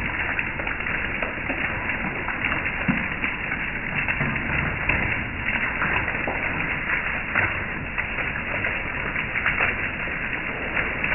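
Hail pelting a wooden deck and metal patio furniture: a steady, dense crackle of countless small hailstone impacts over a rushing hiss of falling ice and rain.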